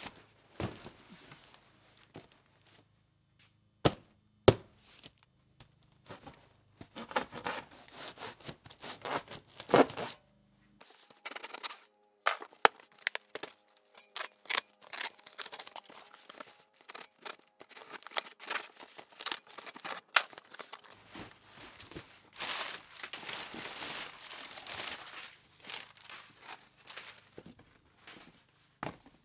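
Cardboard shipping boxes being handled and opened: packing tape tearing and cardboard flaps rustling and crinkling, with a few sharp knocks as the boxes are moved, two of them loud about four seconds in.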